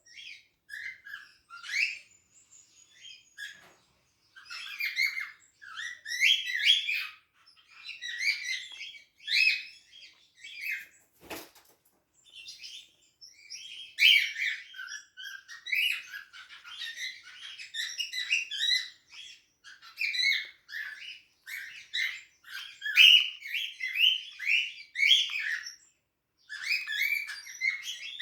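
Pet cockatiels chirping and calling in bouts of quick, short chirps with brief pauses between, and a single sharp knock about eleven seconds in.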